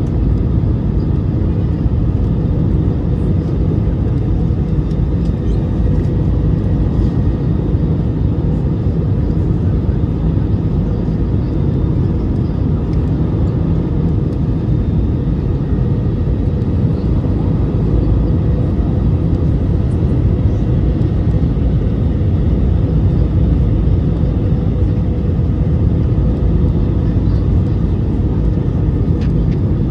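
Airliner cabin noise heard from a window seat: a steady low rumble of airflow and jet engines, with a constant engine hum held throughout.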